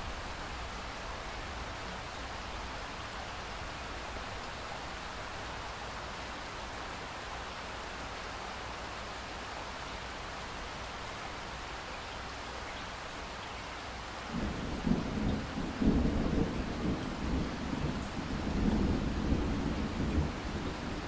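Steady rain hiss, joined about two-thirds of the way through by thunder rumbling low in uneven rolling swells.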